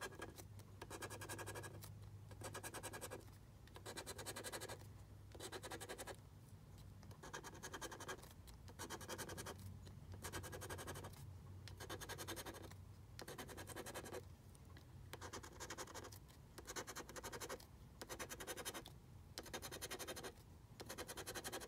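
A coin scratching the coating off a paper lottery scratch-off ticket, in a run of rasping strokes about a second long with short pauses between them.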